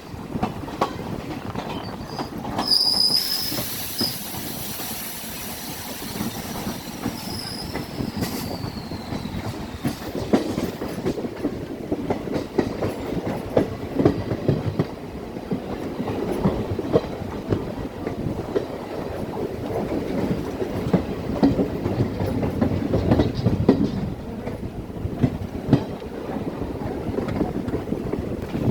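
DEMU passenger train running on the rails, with wheel clatter and many short clicks throughout. A high squeal starts about three seconds in and slides down in pitch, fading out after several seconds.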